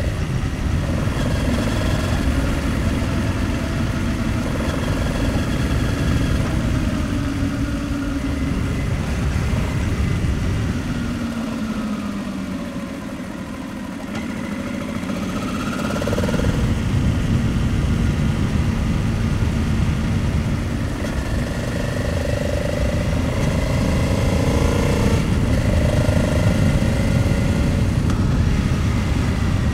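Honda Transalp 700's V-twin engine running under way on a winding road, its note rising and falling with the throttle, under heavy wind noise on the microphone. The wind and engine ease for a few seconds near the middle as the bike slows for a tight bend, then build again.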